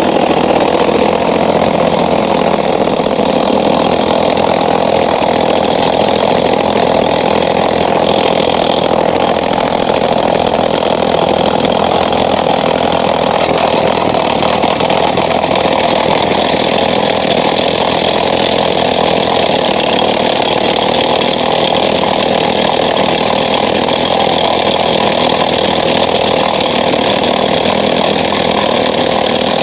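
Engine-driven road-building machinery running steadily and loudly, one continuous engine drone without pauses.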